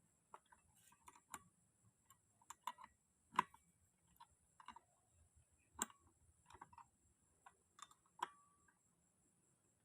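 Scattered light clicks and metallic taps of small parts and hand tools being handled while working on a grass-cutter engine, with one clink near the end that rings briefly.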